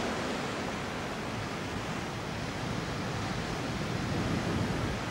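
Steady rushing outdoor noise of wind and sea surf, with no distinct events.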